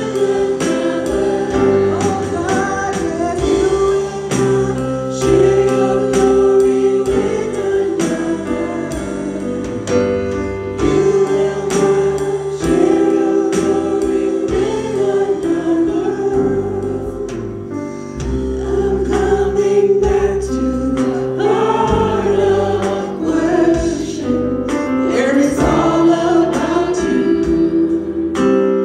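Live contemporary worship song: voices singing over a Roland V-Synth GT keyboard, bass guitar and a drum kit keeping a steady beat.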